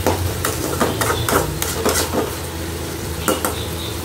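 A spatula scraping and knocking against a pan about eight times while stirring chopped onions and tomatoes frying in oil, with a light sizzle and a steady low hum underneath.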